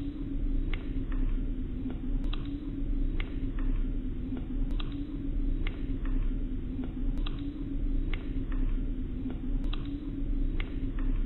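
A looped vintage crackle-and-hum sound effect: a steady low hum with sharp clicks and pops at fairly regular spacing, the same pattern coming round about every two and a half seconds.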